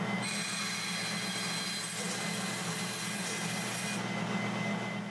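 Bandsaw running and cutting through plywood: a steady motor hum under the hiss of the blade in the wood, with the cutting noise easing about four seconds in.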